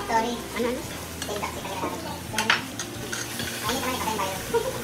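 Samgyupsal pork belly sizzling on a tabletop grill, with utensils clinking against dishes and one sharp clink about two and a half seconds in. Brief voices in the background near the start and again after three and a half seconds.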